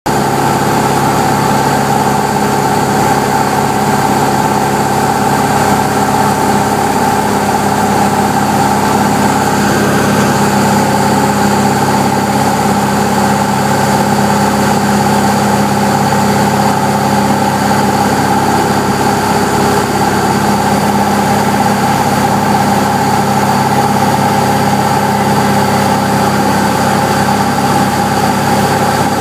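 Cessna 172B's Continental O-300 six-cylinder engine and propeller droning steadily in flight, heard from inside the cabin.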